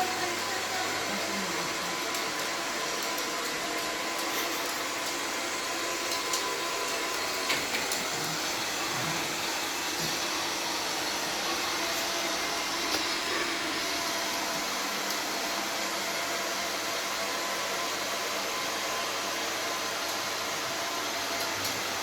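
Robot vacuum cleaner running, a steady whirring hum, with a few small clicks along the way.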